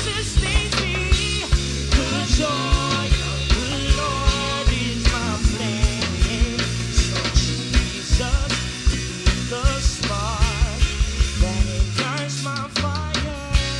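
Live worship band playing rock-style music: a drum kit keeps a steady beat over sustained bass, while a lead melody with wide vibrato wavers above it.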